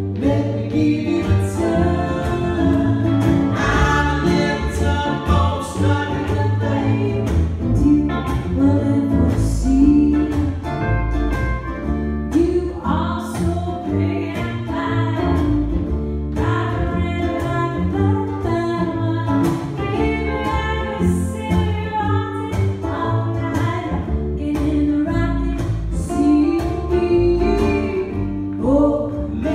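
Live folk-pop trio playing a song: strummed ukulele, electric guitar and plucked double bass, with sung vocals over a steady strummed beat.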